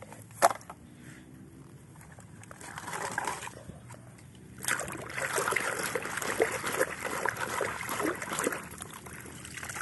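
Water splashing and sloshing as a muddy plastic toy is swished and scrubbed in a tub of soapy water, starting about halfway through and going on for about four seconds. A single short knock comes just before.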